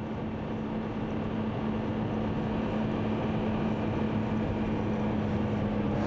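Steady road and engine noise of a moving car as heard inside its cabin, with a low steady hum.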